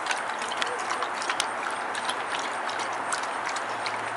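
Beagle eating dry kibble fast from a stainless steel bowl: rapid, irregular clicking and crunching of kibble and teeth against the metal bowl.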